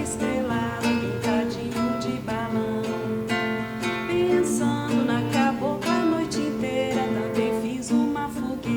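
Music: a song accompanied by strummed and plucked acoustic guitar, playing steadily.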